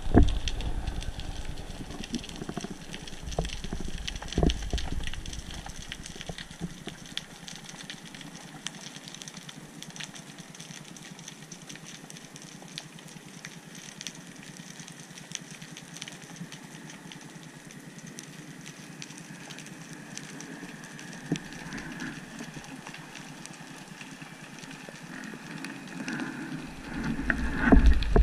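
Underwater sound picked up through a diving camera's housing: water rushing and surging in strong low pulses at the start, around four seconds in, and again near the end. Between them comes a quieter stretch of faint hiss with scattered faint clicks and a few thin steady tones.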